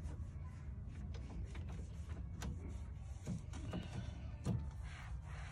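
Cloth rag wiping and rubbing a vinyl car door panel, with a few light knocks against the door, over a low steady background rumble.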